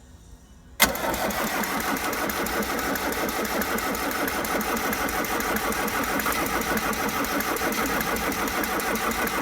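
Starter motor cranking the Rover SD1's 2.4-litre VM turbo-diesel, cutting in with a sharp clack about a second in and turning the engine over steadily without it catching. The engine is getting too little throttle to fire.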